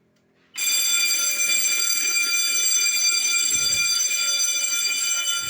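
Fire alarm sounding: a loud, steady, high-pitched electronic alarm tone that comes on suddenly about half a second in and keeps going without a break. It is the system going into alarm during a test, with the panel registering a call on zone 1.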